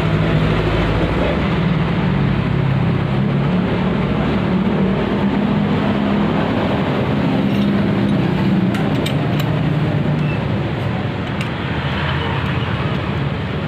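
A motor running steadily with a low hum that wavers slightly in pitch.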